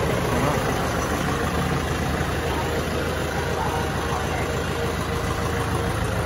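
Kubota M6040SU tractor's four-cylinder diesel engine idling steadily.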